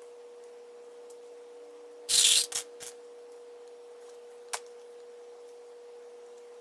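A handful of plastic sewing clips clatters onto a cutting mat about two seconds in: one short clatter, then two smaller rattles as they settle. About two seconds later comes a single sharp click, like a clip snapping onto the folded towel edge. A steady faint hum runs underneath.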